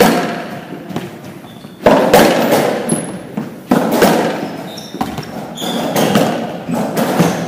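Racquetball rally: the ball cracks off racquets and the walls of an enclosed court, a sharp hit every second or two, each echoing off the walls.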